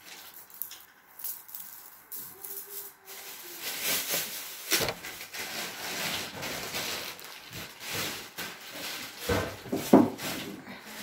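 Close rustling and handling noise, irregular and scratchy, broken by a few sharp knocks, the loudest about ten seconds in.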